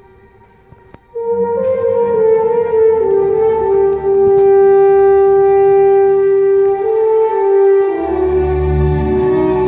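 French horn playing a slow solo line after a moment of quiet: a few stepping notes, then one long held note. Near the end the string ensemble, cello and double bass among them, comes in beneath the horn.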